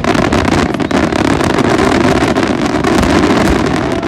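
Fireworks barrage: rapid bangs and crackling that run together into a continuous loud rumble.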